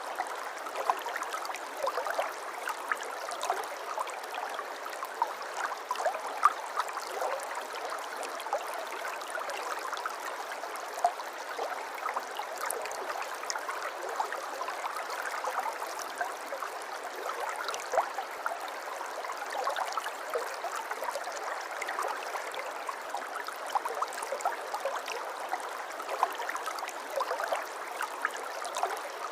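Shallow river or stream flowing steadily, with a constant babble and many small splashes and gurgles.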